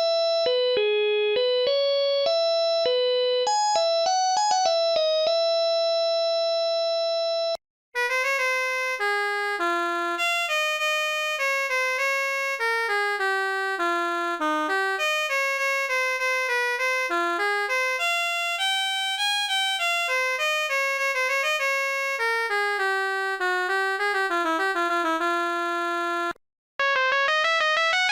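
Built-in synthesized ringtones of a Bitsmo VF30 phone (Mediatek MT65xx sound set), recorded from the phone itself. One melody ends on a long held note about seven seconds in. After a brief silence a fuller, faster ringtone melody plays until near the end, then a third ringtone begins.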